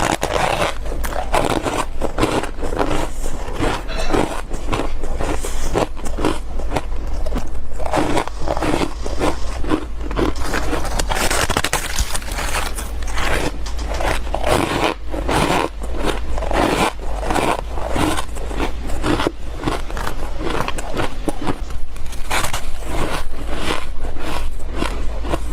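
Freezer frost being bitten and crunched between the teeth: a continuous run of squeaky, crunchy bites of packed ice crystals.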